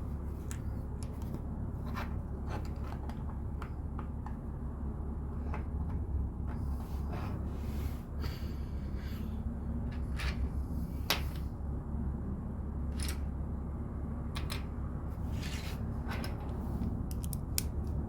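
Plastic LEGO bricks clicking and tapping as pieces are picked up, placed and pressed together, with a few short rustles, over a steady low background hum.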